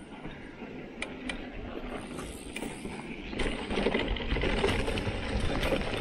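Mountain bike rolling downhill on a dirt trail: tyres running over dirt and small stones while the bike rattles and clicks over the bumps, getting louder about three and a half seconds in.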